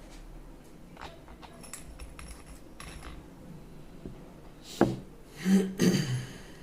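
Fan parts being handled and fitted together during reassembly: light clicks and taps, then a sharp knock about five seconds in, followed by about a second of louder clattering and scraping of hard parts.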